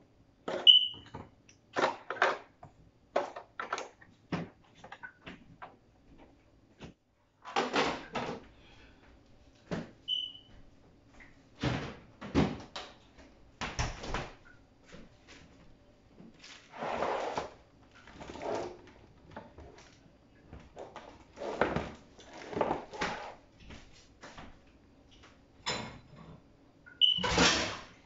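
Food containers and items being handled and set down in a fridge: irregular knocks, clicks and rustling, with a few brief squeaks.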